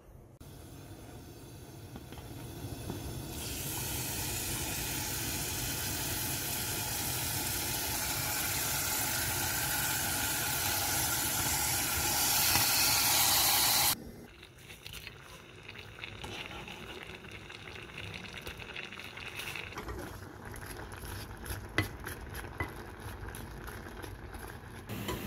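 Marinated sliced beef and onions sizzling in a frying pan, the hiss growing loud a few seconds in. About halfway through it cuts off abruptly, and a quieter sizzle follows with small clicks of a wooden spatula stirring the meat and onions.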